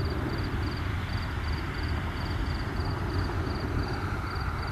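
Overflying aircraft heard at a distance: a steady, deep rumble with a lighter hiss over it. Crickets chirp steadily throughout, about three chirps a second.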